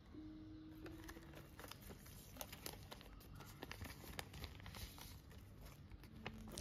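Faint crinkling and rustling of a translucent plastic wrapper and a folded paper instruction sheet being handled, pulled out and unfolded, with many small scattered clicks and ticks.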